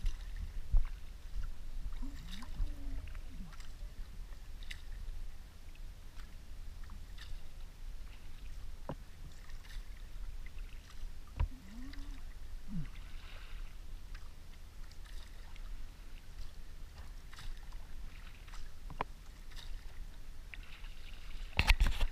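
Kayak paddle dipping and dripping in calm harbour water, with small splashes and water sloshing against the hull over a steady low wind rumble on the microphone. A louder burst of noise comes near the end.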